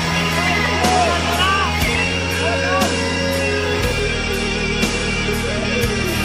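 Background rock music with guitar, its bass notes shifting every second or two.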